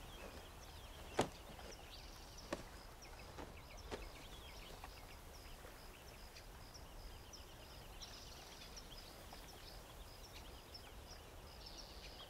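Quiet outdoor ambience with small birds chirping faintly, in short high repeated calls. A few soft clicks come about one, two and a half and four seconds in.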